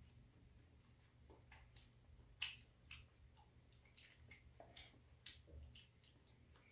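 Faint, scattered clicks and taps of wooden chopsticks against a paper food box and takeout containers while eating, with one sharper click about two and a half seconds in.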